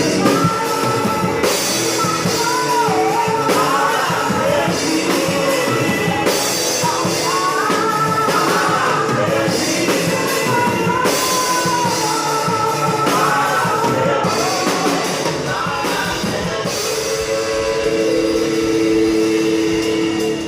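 Live church band playing: voices singing over guitar and a drum kit whose snare is a Mapex Maple 14x8, captured unmiked and unmixed. The song ends on a long held chord.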